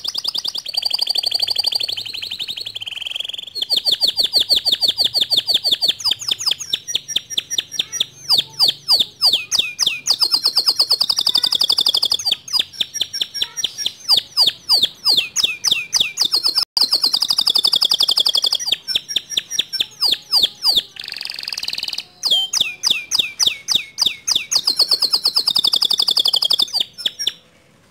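White male canary singing a long, nearly unbroken song of rapid trills and rolling repeated phrases, stopping just before the end.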